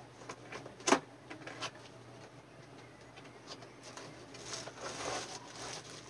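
Cardboard box and plastic packaging being opened by hand. Scattered small clicks and scrapes, with one sharp snap about a second in, then a stretch of rustling packaging toward the end.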